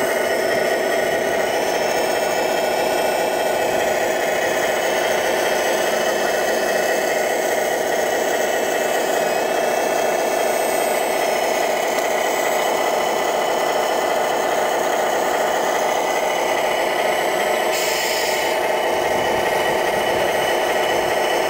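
Wedico Cat 966 RC model wheel loader running: a steady engine-like drone mixed with the whine of its electric drive and hydraulic pump, holding level throughout. Near the end there is a brief hiss.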